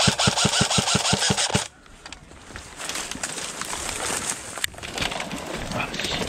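Airsoft gun firing a rapid burst of about ten shots in under two seconds and stopping suddenly. This is followed by a quieter, steady rattle of automatic fire.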